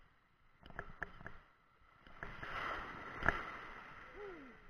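Seawater sloshing and splashing while a hooked fish is played in shallow water. There are a few sharp clicks about a second in, a sharp knock in the middle, and a short falling vocal sound near the end.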